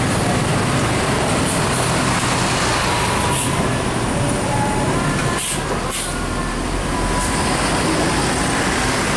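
Tour buses' diesel engines running as they drive past, a steady rumble mixed with road noise.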